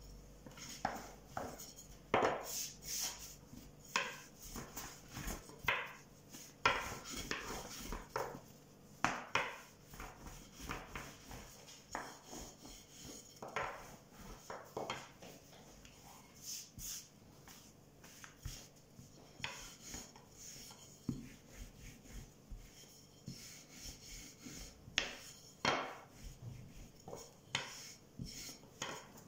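Long thin wooden rolling pin (oklava) rolling out dough on a floured counter: irregular light knocks and rubbing as the pin is rolled back and forth and set down.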